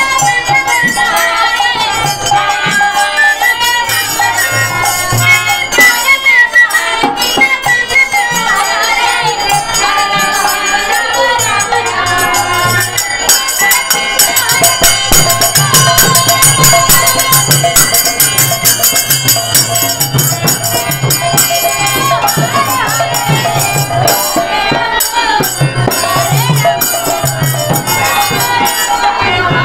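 Live kirtan music: a rope-laced barrel drum beats a steady rhythm under a wavering melody, with continuous jingling hand percussion.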